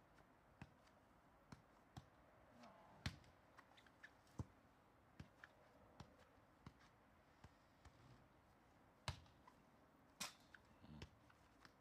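Soccer ball being juggled and passed back and forth with kicks and headers: a series of short, sharp thuds at irregular intervals, about one a second, with louder ones about 3 and 9 seconds in.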